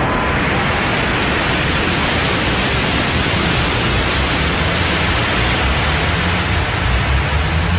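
Steady rushing noise like rocket thrust, a cartoon sound effect for a small spacecraft flying.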